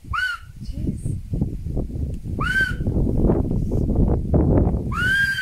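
A man whistling to call hippopotamuses: three short notes about two and a half seconds apart, each rising then falling in pitch. Under them runs a loud, irregular low rumbling noise, strongest in the second half.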